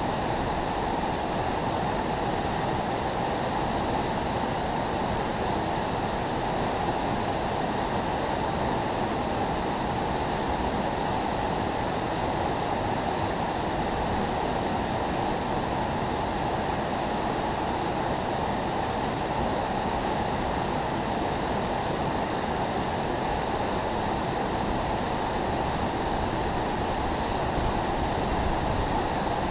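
Steady rushing of river water pouring through a spillway, an even roar without breaks.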